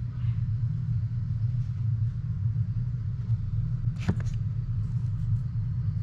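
A steady low hum runs throughout. About four seconds in comes a short click as a hand takes hold of a Weber garlic parmesan seasoning jar on the counter.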